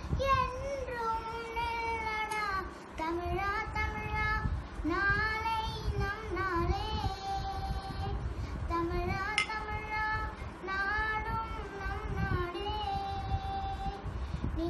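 A young girl singing solo, holding long notes whose pitch slides and wavers between phrases, with short pauses for breath.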